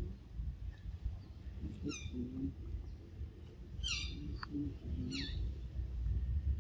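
Short, high-pitched animal calls that slide down in pitch, three times, over a low rumbling background.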